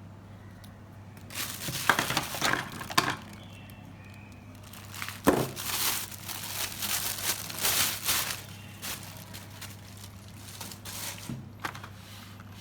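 Packaging crinkling and rustling as a parcel is unwrapped, in two main stretches with lighter rustles after, and a sharp click about five seconds in. A steady low hum runs underneath.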